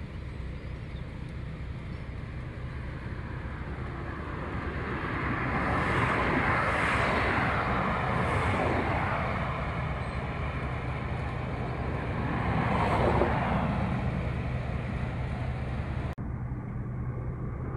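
Road traffic passing close by, swelling and fading twice over a steady low hum. Near the end the sound turns suddenly duller.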